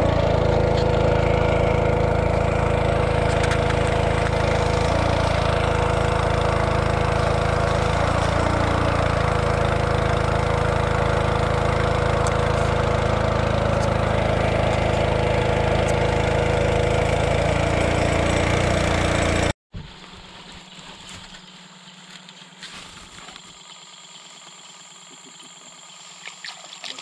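Motor of a long wooden river boat running steadily underway, with rushing water and air around it. About twenty seconds in it cuts off abruptly to much quieter surroundings.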